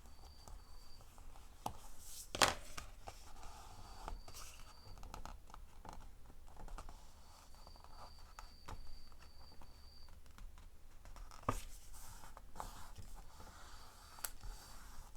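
Paper being handled and rubbed against a craft surface, soft rustling and scraping with scattered light taps, the sharpest about two and a half seconds in.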